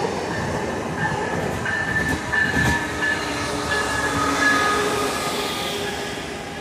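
Coaster commuter train, led by a Siemens Charger diesel-electric locomotive with double-deck coaches behind, passing close by: a steady rumble of wheels on rail with thin high-pitched tones coming and going and a few sharp clacks a couple of seconds in, the noise easing off near the end as the coaches roll past.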